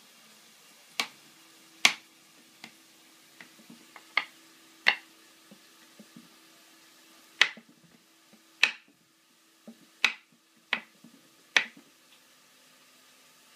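A child's knife chopping down through button mushrooms onto a thin plastic cutting mat: sharp, irregular taps, about ten loud ones roughly a second apart, with softer taps between.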